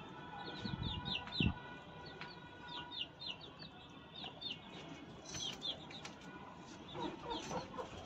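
Faint chirping of small birds or chicks: many short, quick falling notes repeated throughout, with a soft thump about one and a half seconds in.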